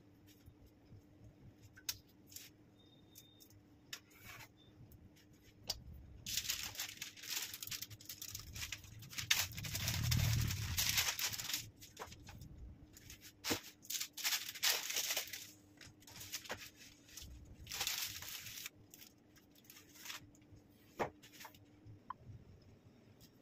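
White baking paper rustling and crinkling as a jam-spread sponge cake sheet is rolled up inside it, in bursts through the middle, with a few sharp clicks.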